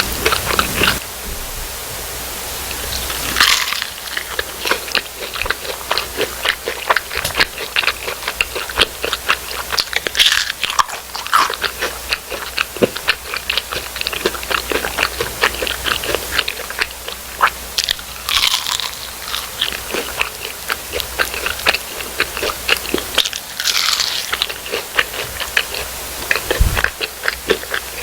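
Close-miked eating: crispy food crunching and being chewed, with a rapid crackle of small crunches and a few louder bites.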